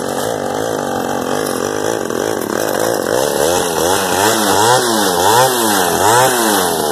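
Mini quad's small engine running, then revved up and down several times in quick succession in the second half, its pitch rising and falling with each blip of the throttle.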